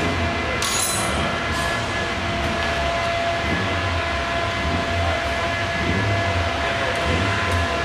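An engine running at a steady speed, a constant drone with a low, pulsing throb that neither rises nor falls.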